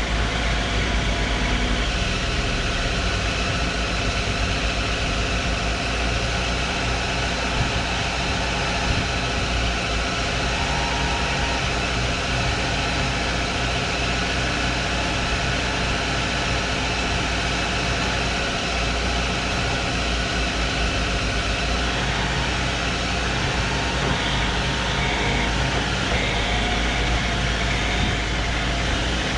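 Heavy excavator diesel engine running steadily at an even pitch, with no revving or knocks.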